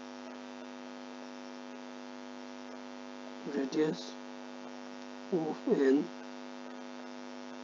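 Steady electrical mains hum in the recording: a constant low buzz with many overtones. Two short spoken phrases break in a few seconds in.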